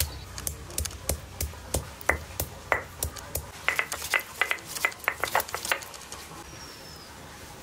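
Garlic cloves being pounded with a stone pestle on a flat grinding stone: even knocks about three a second, then a quicker run of sharper, slightly ringing knocks about halfway through that stops near three-quarters of the way in.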